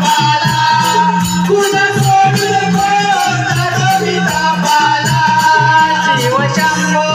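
Konkan Jakhadi folk music: a held, wavering melody line over low drumming, with a steady rattling beat running through it.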